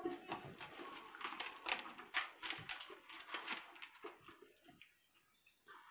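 People chewing fried Korean cheese dogs: irregular crunches and wet mouth clicks that fade out after about four seconds.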